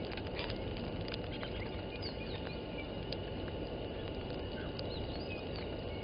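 Wind rushing over an outdoor microphone, a steady low rumble, with faint distant bird chirps and a thin steady high tone above it.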